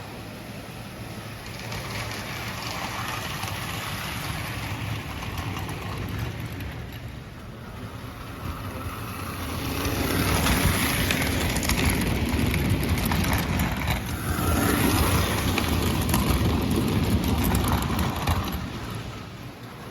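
American Flyer S-gauge toy train with a long consist of die-cast cars running on the track, a steady clickety-clack of wheels and motor rumble. It grows much louder twice as the train passes close, a little after midway and again a few seconds later, then fades near the end.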